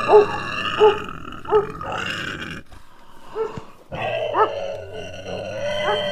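A dog barking in short, evenly spaced barks, about one every two-thirds of a second, stopping briefly around the middle. It then barks again over a drawn-out, wavering growl.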